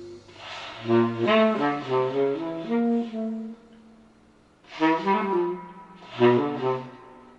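Recorded saxophone played back through 1967 AR-3a loudspeakers driven by a Mark Levinson ML-2L amplifier, heard through the camera's microphone in the room. There are two melodic phrases with a short pause about four seconds in, and a faint breathy puff of air just before the notes sound, the detail of the player's breath reaching the reed.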